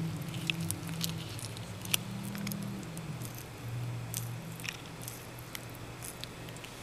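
Merauke blue-tongued skink chewing and biting leafy greens, with irregular sharp, wet clicks and crunches as its jaws snap on the leaves.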